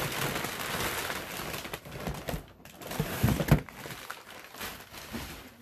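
Tissue packing paper rustling and crinkling as it is pulled out of a box, a steady rustle for the first two seconds, then scattered crinkles and handling knocks, loudest about three seconds in.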